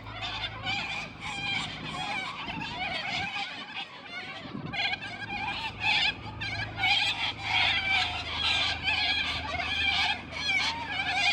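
A flock of white cockatoos calling all at once: a dense, unbroken, noisy chatter of many overlapping harsh calls, with a low steady hum underneath.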